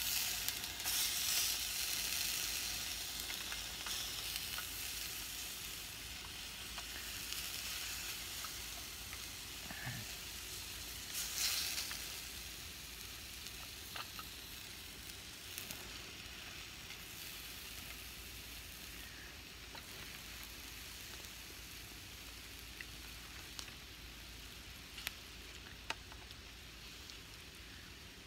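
Bacon sizzling as it fries in a pan: a steady hiss with scattered small pops, slowly dying down.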